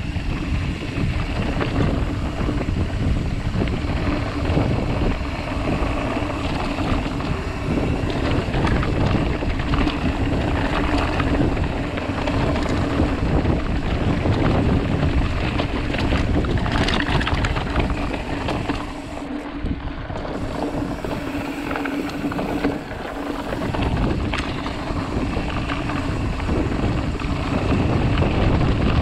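Wind buffeting the microphone and a mountain bike's tyres rumbling over a stony dirt singletrack on a descent, with a steady hum underneath. The low rumble eases for a few seconds past the middle.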